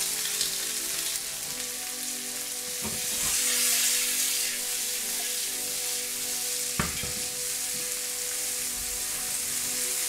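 Sliced onions, garlic, mild peppers, black olives and cherry tomatoes sizzling steadily in hot olive oil in a frying pan, with the pan tossed partway through. The sizzle swells briefly about three seconds in, and there are two short knocks, near three and near seven seconds.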